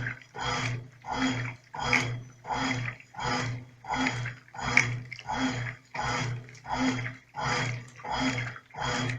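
Brastemp Clean 5 kg top-loading washing machine agitating on its delicate setting during the initial agitation of the soak program. The agitator swishes the water and clothes back and forth, about three strokes every two seconds, with the motor humming on each stroke.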